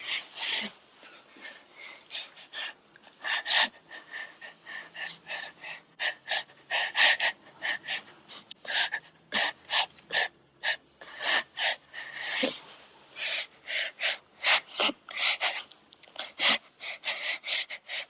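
A child crying in short, rapid sobs, several a second.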